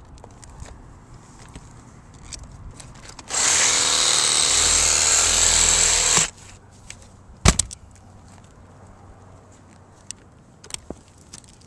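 Makita cordless reciprocating saw running for about three seconds as its blade is worked up under the shingles at the edge of the roof hole, cutting through roofing nails that would block the vent flashing. A single sharp knock follows about a second after it stops.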